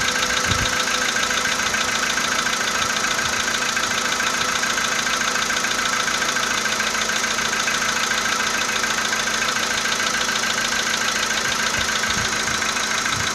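Volkswagen Polo Sedan engine idling steadily with a repeating knock in it.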